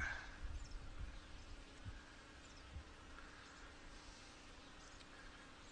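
Honey bees buzzing faintly around an opened nuc, a steady low hum, with a few soft low thumps in the first two seconds.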